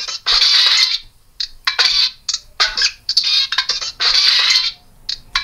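Homemade sampler beat played down a telephone line: harsh, crackling bursts of noise in an uneven rhythm, with no bass.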